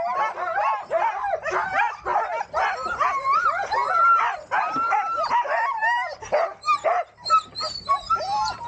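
A yard full of sled dogs barking, yipping and whining together in many overlapping calls, thinning to scattered yips and barks after about six seconds.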